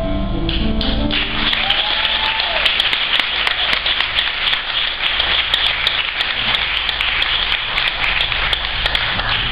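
A song's last chord from the band and singers dies away in the first second, then audience applause breaks out, dense and steady.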